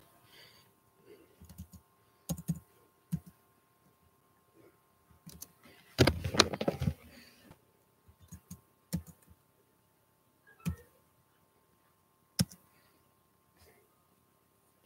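Typing on a computer keyboard: scattered single keystrokes, with a quick run of keys about six seconds in.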